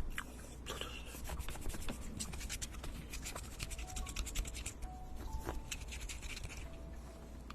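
Close-miked scratching: a dense run of fine, crackling ticks, thickest in the first half and thinning out toward the end.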